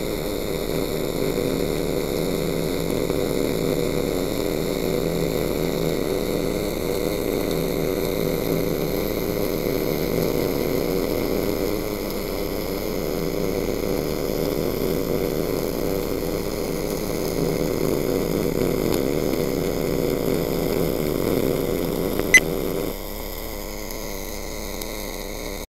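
Steady hum and hiss of STT short-circuit wire-feed arc welding on a downhill root pass, with one sharp click about 22 seconds in. The noise drops to a quieter steady level just after.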